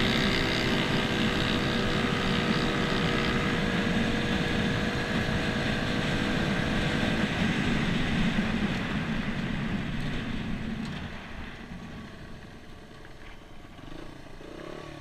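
Honda four-stroke single-cylinder dirt bike engine running hard at speed, heard from the handlebars. About eleven seconds in the sound drops away as the bike eases off and slows.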